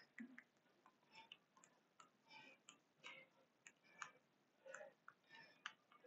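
Near silence, with faint scattered light ticks and rustles at irregular intervals.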